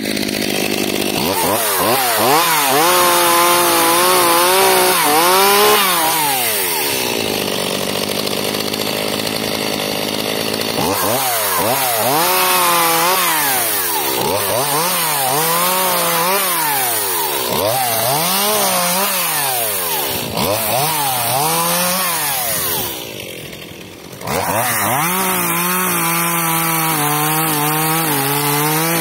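Stihl MS 181 two-stroke chainsaw cutting birch logs, its engine revving up and falling back again and again as the chain bites into the wood. About four-fifths of the way through it drops off briefly, then runs at high revs again. The saw is a small hobby model on its running-in period with a newly fitted carburetor.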